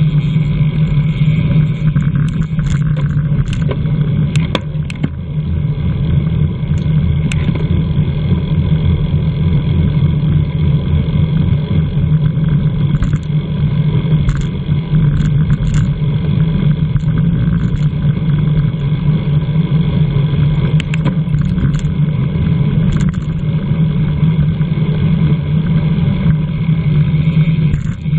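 Loud, steady wind and road noise on a camera mounted on a racing bicycle in a criterium, with a few faint clicks scattered through it.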